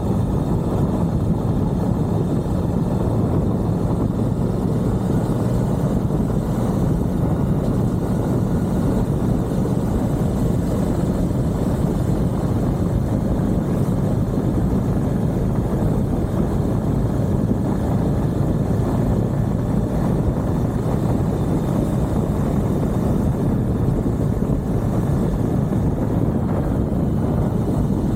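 Suzuki V-Strom 1050XT's V-twin engine running steadily under way, heard from onboard the moving motorcycle.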